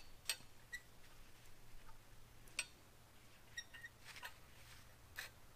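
A handful of faint, irregular clicks and light metal ticks as relief-cut square tubing is flexed into a bend against an angle gauge on a steel welding table.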